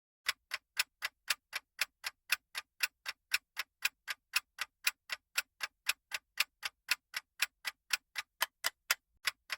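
Clock-style ticking sound effect counting down the guessing time, about four even ticks a second that alternate louder and softer.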